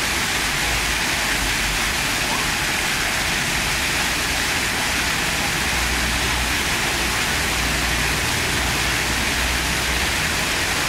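Water fountain: sheets of water pouring off curved chutes and splashing into a pool, a steady rushing splash.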